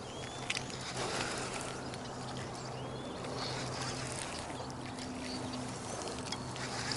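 A steady low hum under an outdoor hiss, with a few faint, short bird chirps.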